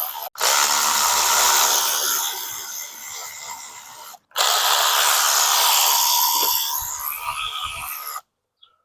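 Handheld power driver spinning out the valve cover bolts of a Predator 224cc engine: two runs of several seconds each, both starting and stopping abruptly.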